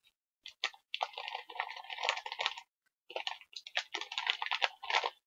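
Crinkling of a foil snack-chip bag being handled, in two crackly bursts, the second starting about three seconds in.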